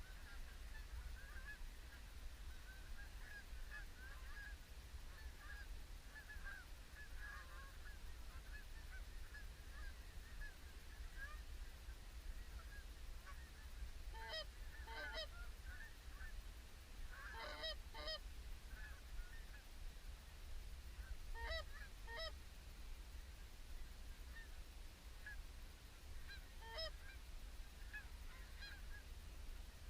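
A flock of Canada geese honking, a steady distant chatter of many birds with several louder, closer double honks in the second half.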